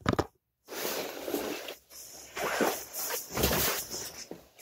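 Rustling handling noise on the microphone as the phone is moved about, coming in uneven stretches with short breaks.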